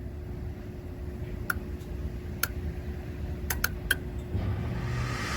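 Gas heating section of a Trane package unit running with its inducer motor humming steadily, while a handful of sharp, irregular clicks come from the unit during an ignition attempt, with burners that are failing to light. A rushing hiss builds near the end.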